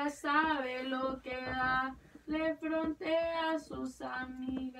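A young woman singing a few short phrases unaccompanied, some notes held for about a second, with brief breaks between phrases.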